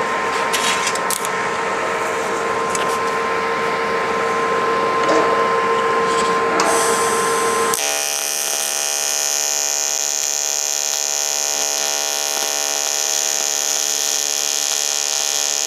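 AC TIG welding arc from a Longevity Innovator 255i on aluminium strikes about halfway through and then runs with a steady buzz. Before it strikes there is a steady hum with a few light clicks.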